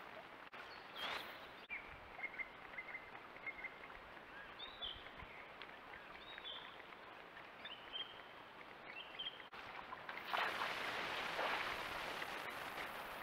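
Outdoor trail-camera sound with a steady hiss, over which a bird gives a run of short chirps and then several curling whistled notes through the middle. The sound changes abruptly a few times where clips are joined, and a louder rough rustling noise comes in near the end.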